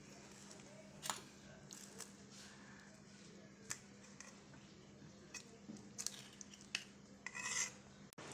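Quiet room tone with a faint steady hum, broken by a few soft clicks and a short rustle near the end.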